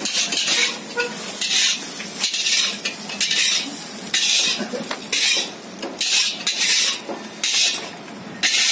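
Metal ladle scraping and clanking against a wok as noodles are stir-fried in hot oil, with sizzling. It comes in repeated strokes, a little more than one a second.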